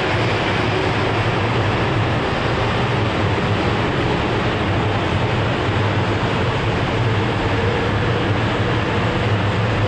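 JR West 500 series Shinkansen train rolling slowly past, a steady rumble with a low hum underneath.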